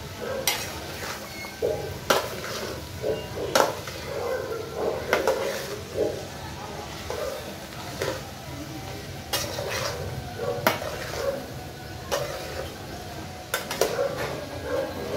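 A metal spoon stirring chopped okra and sliced onion in a metal cooking pot. The vegetables shuffle and rustle, and the spoon clinks sharply against the pot every second or two.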